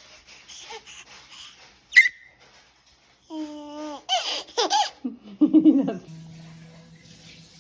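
Short bursts of laughter, with a sharp squeak about two seconds in and the loudest laughs between about three and six seconds in.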